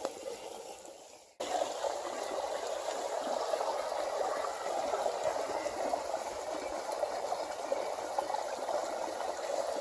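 Creek water running steadily with a bubbling rush, starting suddenly about a second and a half in.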